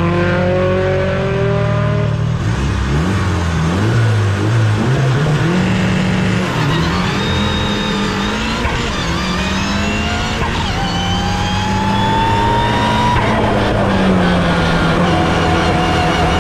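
Mitsubishi Lancer Evolution VII RS's turbocharged 2.0-litre four-cylinder engine at full throttle, accelerating hard up a hillclimb course. The engine note rises in pitch through each gear and drops back at each gear change.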